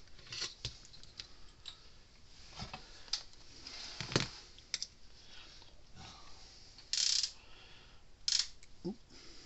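Handling noise at a workbench: a circuit board turned over and wire strippers picked up and set down, giving scattered clicks and light taps. A sharp click about four seconds in is the loudest, and there are two short scraping rustles around seven and eight seconds.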